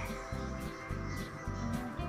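Background music with a steady low beat, about two beats a second.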